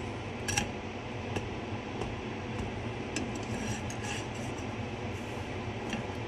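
Kitchen fans running with a steady hum, with a few light clicks and clinks of pan and utensils.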